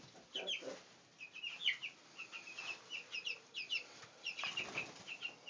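Three-week-old white speckled Brahma chicks peeping: many short, high chirps, several overlapping, in quick irregular succession.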